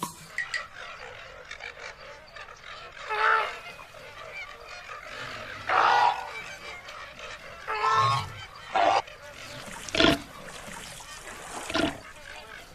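A series of about six loud animal calls, each under a second long, spaced a second or two apart, over steady background noise.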